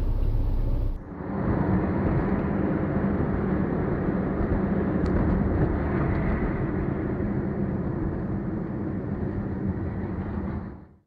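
Steady engine and road noise from inside a car, picked up by a dashcam. It changes abruptly about a second in and fades out near the end.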